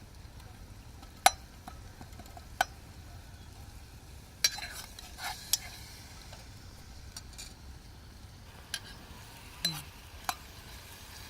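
A spoon stirring a pan of crushed ginger, mustard oil and cane jaggery as it heats, with about ten scattered sharp clinks of the spoon against the pan over a faint sizzle.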